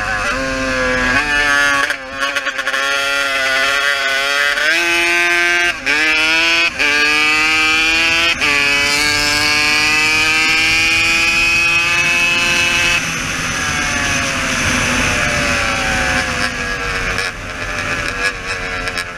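Yamaha sport quad's engine heard from onboard, running hard with wind rushing past, its pitch jumping up and down with several brief cuts in the first eight seconds. It then climbs steadily in one long pull before falling away from about two-thirds through as the throttle closes and the quad slows.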